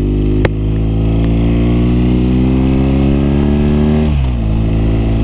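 BMW R nineT's air/oil-cooled boxer twin running under power. Its exhaust note rises steadily in pitch for about four seconds, then falls sharply and holds steady. A couple of sharp clicks come in the first second or so.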